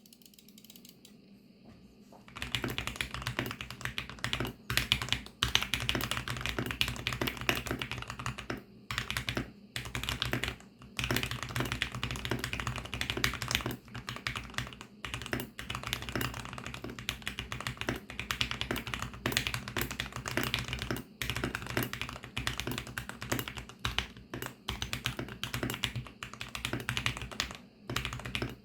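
Typing on a mechanical keyboard with lubed VARO Panda linear switches: fast, continuous keystrokes with a few brief pauses, starting about two seconds in.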